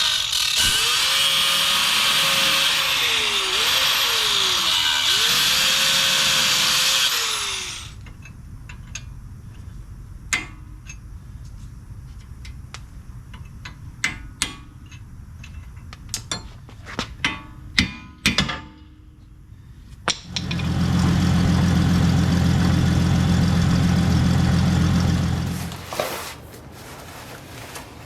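Power tool cutting through a seized steel tie rod end nut, its motor pitch dipping and recovering as it bites, for about eight seconds. Then scattered metallic clinks and knocks, and a second run of the tool, lower and steadier, from about twenty to twenty-six seconds in.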